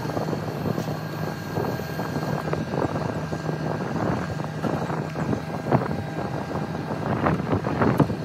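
Roofing debris of torn-off shingles and scrap wood sliding and clattering out of a raised dump trailer bed, a run of irregular knocks and rattles that get sharper and more frequent near the end. A steady low hum runs underneath.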